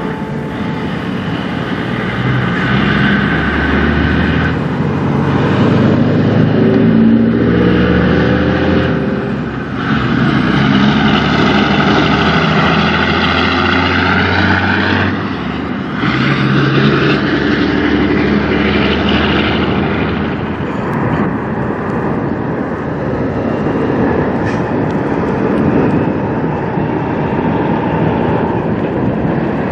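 Diesel semi truck engine accelerating hard under load through the gears, its pitch climbing and dropping at each shift, about four times. It is followed by steadier truck engine running.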